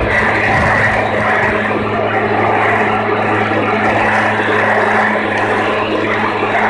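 Gas-powered leaf blower running steadily, clearing wet grass clippings off a sidewalk.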